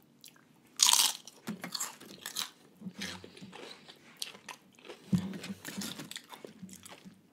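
Crisp fried wonton chips topped with poke crunching as they are bitten and chewed. A loud bite comes about a second in, then a run of smaller chewing crunches, with another loud crunch around five seconds in.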